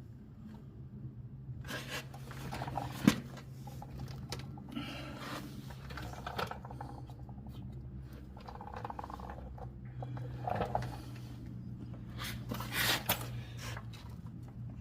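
Scattered scrapes, clicks and clunks of tools and suspension parts being handled while a truck's front strut is fitted, with one sharp knock about three seconds in, over a steady low hum.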